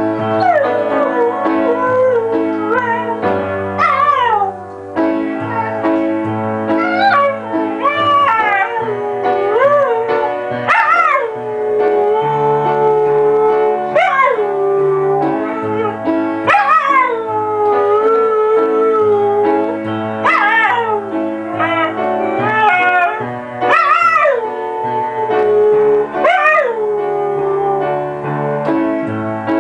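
A husky howling along to piano music: about a dozen howls, each starting high and sliding down in pitch, come every two to three seconds over steady held piano chords.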